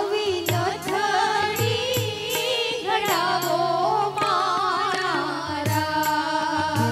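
Live Indian song amplified through a PA: a woman sings an ornamented, wavering melody over sustained keyboard notes, with drum strokes keeping the beat.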